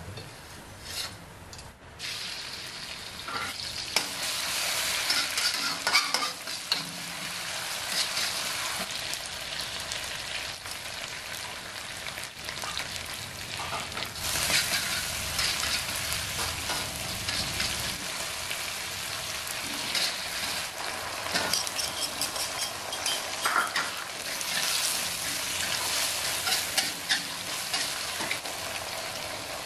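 Oil sizzling in a stainless steel wok as a coarse chili, shallot and garlic paste fries, picking up about two seconds in, with a metal spatula scraping and stirring against the wok. Fried jengkol and salted fish are stirred through the sizzling paste.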